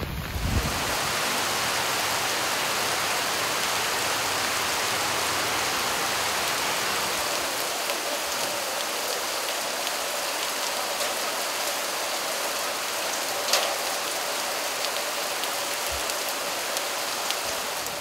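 Heavy rain falling steadily, an even, dense hiss of drops, with one sharper tap a little after two-thirds of the way through.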